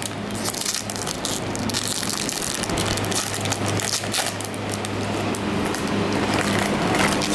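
Foil wrapper of a 2015 Topps Museum Collection baseball card pack crinkling as it is handled and torn open, a dense, irregular crackle over a steady low hum.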